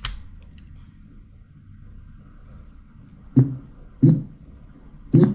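Short snatches of a recorded male voice line, each about a fifth of a second, played back by 3ds Max's audio scrubbing as the animation time slider is dragged frame by frame for lip-sync. One sharp blip comes at the very start, then three more over the last two seconds.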